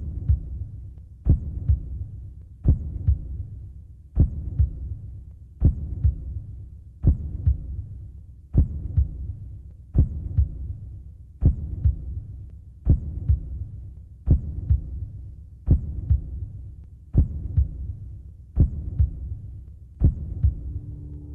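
Slow heartbeat sound effect: a strong low thump followed by a softer one, repeating about every second and a half, over a low hum.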